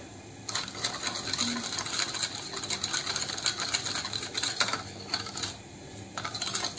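Metal spoon stirring sauce in a glass bowl, clinking and scraping rapidly against the glass as sugar is mixed into soy sauce; it starts about half a second in, stops briefly near the end, then starts again.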